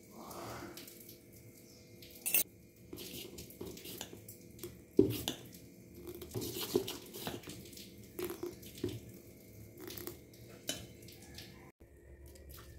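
Steel spoon stirring thick rice batter in a stainless steel bowl: wet stirring and pouring sounds with scattered sharp clinks of spoon against bowl, the loudest a little after two seconds and about five seconds in.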